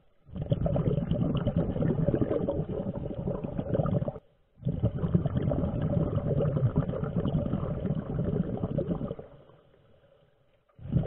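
Scuba regulator exhaust bubbles heard underwater: a diver breathing out in two long bubbling bursts of about four seconds each, with a short pause between them and a quiet stretch near the end.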